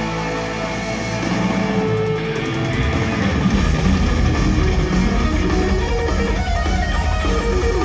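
Live heavy metal band led by electric guitar: held, sustained notes over a low steady bass tone, then the sound grows louder about a second in and the full band comes in about two and a half seconds in, playing on with dense low end.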